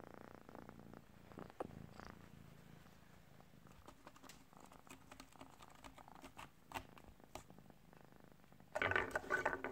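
Domestic cat purring, soft and steady, with scattered faint clicks. A brief louder sound comes near the end.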